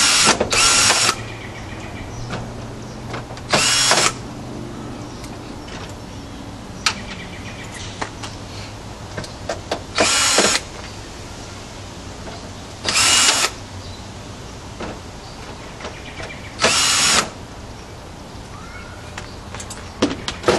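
Cordless drill-driver backing out the screws that hold a motherboard in a computer case: six short runs of about half a second each, the first two back to back, the rest a few seconds apart. Light clicks and knocks of handling come in between.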